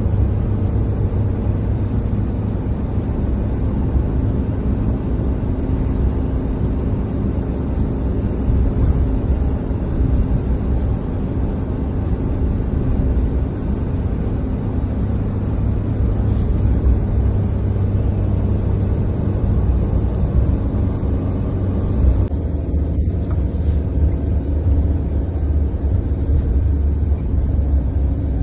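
Car interior drone while driving: a steady low rumble of engine and road noise heard from inside the cabin.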